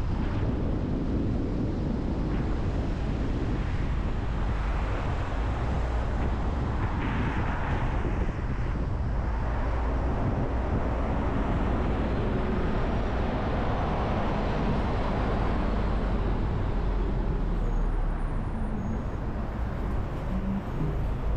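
Steady road noise of a car driving through city traffic: a low rumble of tyres and engine, with a brief swell about seven seconds in.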